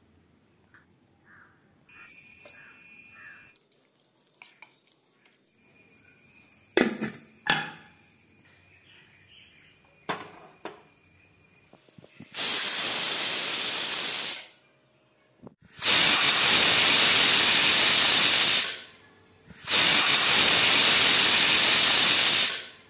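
Stovetop pressure cooker venting steam through its weight valve: three loud bursts of hiss, each two to three seconds long, the cooker's whistles showing it has come up to pressure. Before them come a short steady tone about two seconds in and a couple of sharp knocks.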